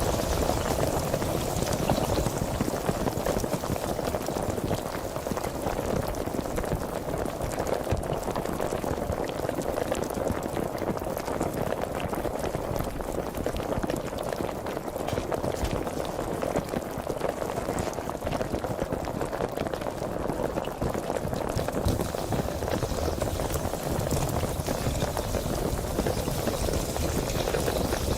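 Sparkling (carbonated) water fizzing: a dense, steady crackle of countless tiny bubbles popping.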